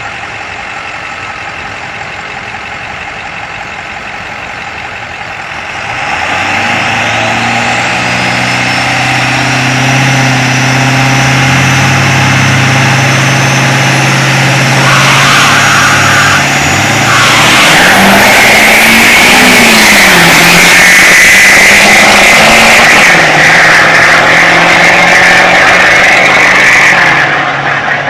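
A Cummins-diesel Dodge Li'l Red Express pickup and a second pickup idling at the drag-strip start line, growing louder about six seconds in as they stage. About fifteen seconds in they launch and accelerate hard, with engine pitch rising and dipping through the gear changes over a high whine, before the sound falls away near the end.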